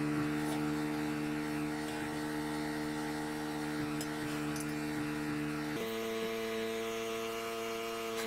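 A steady hum of several held tones that shifts to a different pitch set about six seconds in, with no hammer blows.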